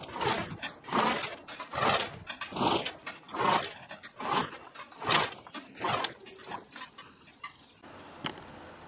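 Corrugated steel roll-up shop door being raised in a series of pulls, rattling with each one, about one stroke a second, fading out near the end.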